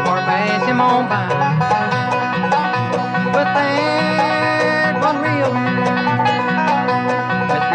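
Bluegrass string band playing an instrumental passage at a brisk, steady beat: rapid picked banjo notes over guitar and upright bass, with a fiddle or mandolin line on top.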